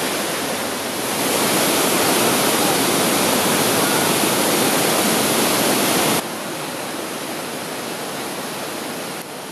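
Steady rush of white water from Shannon Falls' creek cascading over boulders. About six seconds in it drops suddenly to a softer, more distant waterfall rush.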